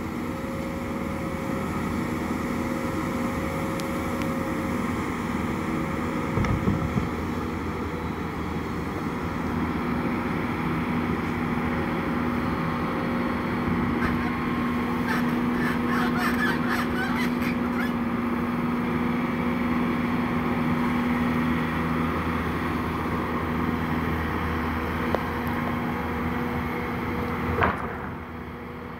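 Bobcat compact track loader's diesel engine running steadily under load as the machine lifts a bundle of logs on its arms. A run of light rattles comes about halfway through, and the engine drops off near the end.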